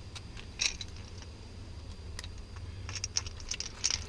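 Small clicks and ticks of screws being handled and driven with a Phillips screwdriver into the plastic power window switch assembly: a short cluster of clicks about half a second in, then a run of quick ticks from about three seconds in.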